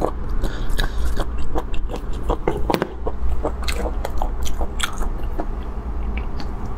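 Close-miked eating: chewing and biting with crunches and many quick wet mouth clicks, thinning out near the end, over a low steady hum.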